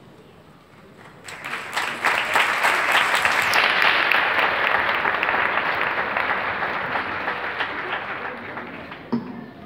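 Audience applauding: the clapping starts about a second in, swells quickly and then slowly fades.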